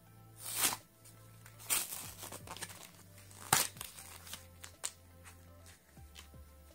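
Paper backing being peeled and torn off a plastic blister pack, with the plastic crinkling, in several short rasping bursts; the sharpest comes about three and a half seconds in. Quiet background music with low held notes plays underneath.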